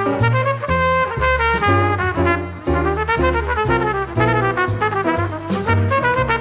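Background music played by brass instruments, trumpets and trombones, over a bass line that moves from note to note in an even rhythm.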